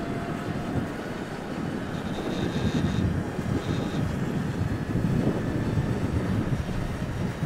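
Toyota Land Cruiser's engine and winch running under load as the bogged vehicle is winched through soft sand, with wind rumbling on the microphone.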